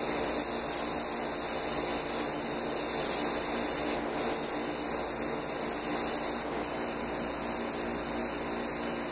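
Airbrush spraying paint onto a fish mount in a steady hiss, the hiss thinning briefly about four and again about six and a half seconds in.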